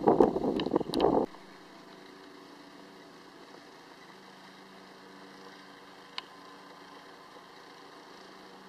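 Wind buffeting the microphone for about a second, cutting off suddenly, followed by a faint steady hum and a single short click about six seconds in.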